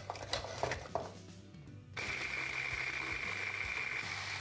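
Biscuits knock and clatter as they are dropped into a plastic chopper bowl, then about two seconds in an electric food chopper starts suddenly and runs with a steady high whine, grinding the biscuits to crumbs.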